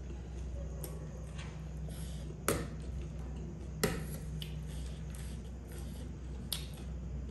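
Metal spoon and fork clinking and scraping on a ceramic plate while eating chatpate, with two sharp clinks a little over a second apart near the middle and a lighter one later, over a steady low hum.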